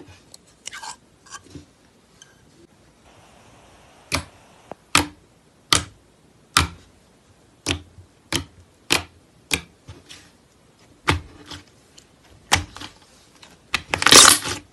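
Slime being pressed and poked, giving a regular series of sharp pops a bit more than one a second, then a dense crackling burst near the end.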